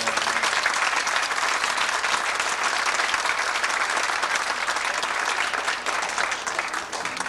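An audience applauding at the end of a dance number, starting just as the music's closing chord stops and tapering off near the end.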